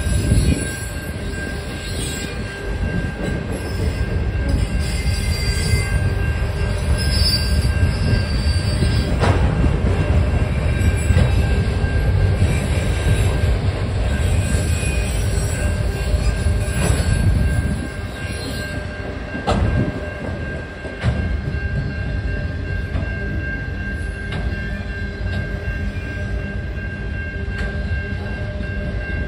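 Autorack freight cars rolling past: a continuous low rumble of wheels on rail with a steady high-pitched squeal over it, and three sharp metallic clanks along the way. The rumble eases about two-thirds of the way through.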